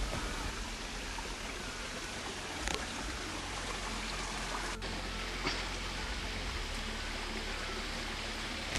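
Forest stream flowing: an even, steady rush of running water, with a few faint ticks.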